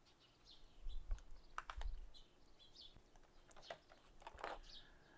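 Thin clear plastic clamshell packaging clicking and crackling faintly in a few short bursts as its top half is handled and lifted off, with birds chirping faintly in the background.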